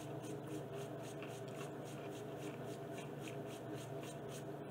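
Faint, quick crunching of Takis Blue Heat rolled corn tortilla chips being chewed, about four crunches a second, over a steady low hum.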